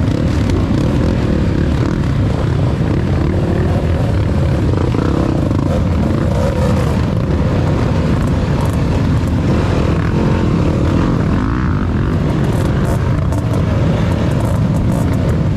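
Trail motorcycle engines running and revving, several at once, their pitches overlapping and rising and falling.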